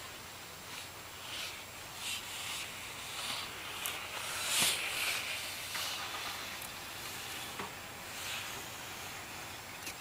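Inline figure skate wheels (Synergy 89A, 72 mm) rolling on a hard tennis-court surface: a hiss that swells and fades with the skater's strokes, loudest about halfway through. A few sharp clicks are scattered through it.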